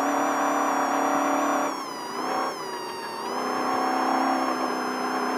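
Off-road race vehicle's engine running hard at high revs, heard from inside the cockpit. Its pitch dips briefly about two seconds in and again around three seconds as the throttle eases, then climbs back to a steady drone.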